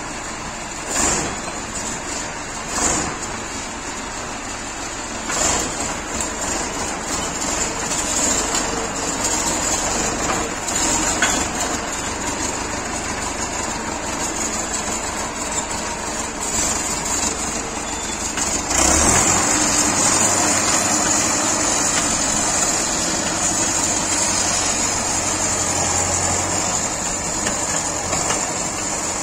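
DT-75 crawler tractor's diesel engine running while the tractor drives off on its tracks, freshly repaired and not yet fitted with its guards and side panels; a few short knocks early on, and the sound steps up in loudness about two-thirds of the way in.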